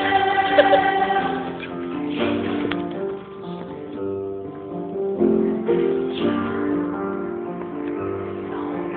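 A choir singing sustained chords in several voice parts, the notes held and shifting from chord to chord.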